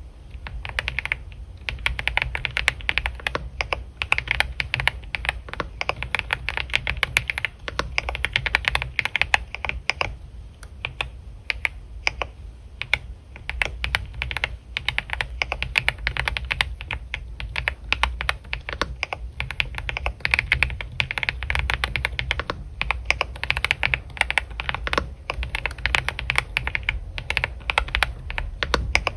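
Computer keyboard typing: quick, irregular key clicks in flurries with short pauses, starting about a second in, over a steady low hum.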